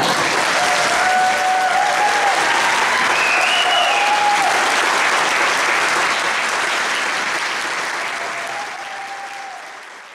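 Audience applauding at the end of a choral song, the clapping tapering off over the last few seconds.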